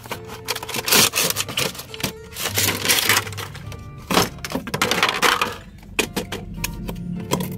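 Toy packaging being handled, crinkling and crackling in several short bursts over steady background music.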